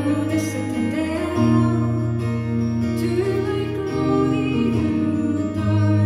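Live folk music on reed instruments, a shruti box and an accordion: held drone chords that shift about every two seconds, with a wavering melody line above.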